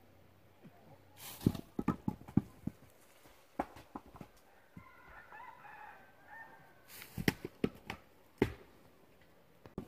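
A rooster crowing faintly once, about five seconds in, between two clusters of sharp irregular knocks and brief rustles, the loudest sounds.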